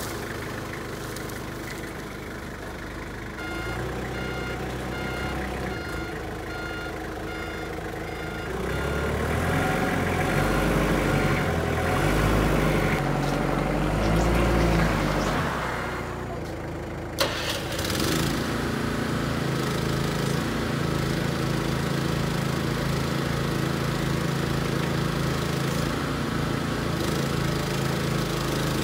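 Forklift engine running and revving, with a beeping alarm for about five seconds in the first third, while the trailer-mounted boom lift is moved. About 17 seconds in there is a click, then the boom lift's small engine runs steadily with an even pulse as its outriggers are worked.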